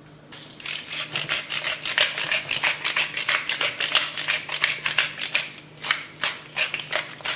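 Wooden pepper mill being twisted by hand, grinding peppercorns in a quick, steady run of rasping clicks, about four a second, stopping near the end.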